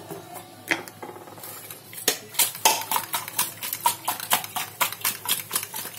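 Whole climbing perch (koi fish) being tossed and rubbed by hand with salt and turmeric in a stainless-steel bowl: rapid clinks and scrapes of the fish against the steel, a few at first, then coming thick and fast from about two seconds in.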